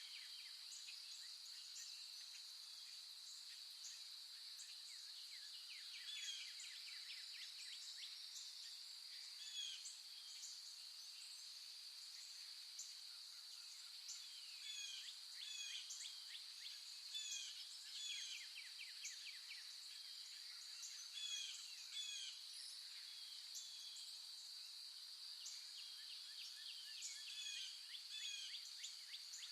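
A steady high-pitched insect drone, with many short bird chirps and quick whistles over it that come and go in clusters.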